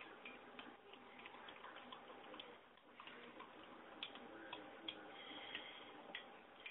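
Faint, scattered clicks of a utensil stirring in a small plastic measuring cup, a few single ticks about a second apart in the second half, over quiet room tone.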